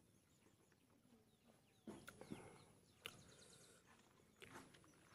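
Faint chewing and mouth clicks from someone eating pork intestine by hand, with a few faint bird chirps behind.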